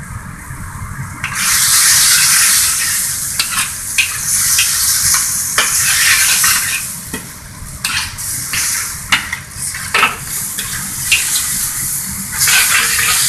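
Chicken and vegetable stir-fry sizzling in a hot wok, with a spatula and ladle scraping and clacking against the wok as the food is tossed. The sizzle jumps up about a second in as cornstarch slurry goes into the pan for the sauce.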